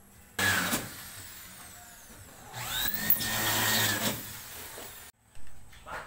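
Power drill running in two bursts: a short one about half a second in, then a longer one that spins up in pitch and holds. The sound cuts off suddenly near the end.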